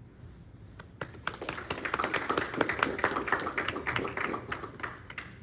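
A small audience applauding. Distinct hand claps start about a second in, build up, and die away near the end.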